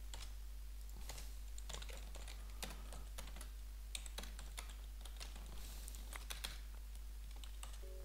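Computer keyboard typing: faint, irregular keystrokes spread unevenly, over a steady low hum.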